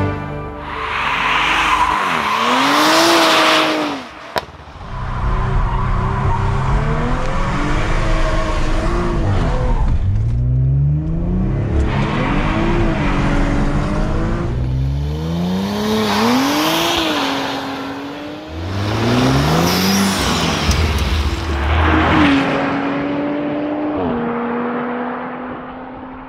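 MTM-tuned Audi RS5-R's twin-turbo V6 revving hard again and again, its pitch climbing and falling every couple of seconds, with tyre noise from wheelspin on wet asphalt. Near the end the engine settles to a steady note and fades out.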